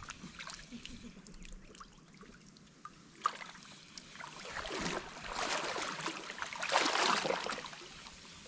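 Water sloshing and splashing around a person's legs as they wade through shallow water, in two swells about five and seven seconds in. A single sharp click comes a little after three seconds.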